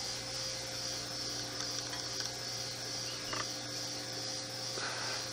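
Steady electrical hum with a faint hiss behind it, and a faint soft knock about three and a half seconds in as a glass canning jar is set down on a folded towel.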